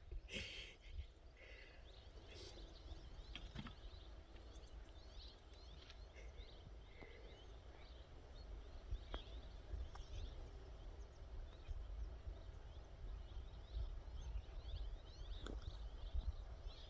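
Faint outdoor ambience: a steady low wind rumble with many small birds chirping, the chirps growing busier towards the end, and a few scattered clicks.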